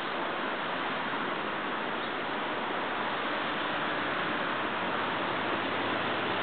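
A steady, even hiss with no distinct sounds standing out.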